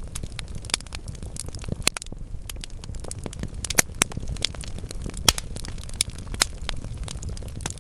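Wood fire burning in a fireplace: logs crackling, with frequent sharp pops over a low steady rumble of flames, the loudest pop about five seconds in.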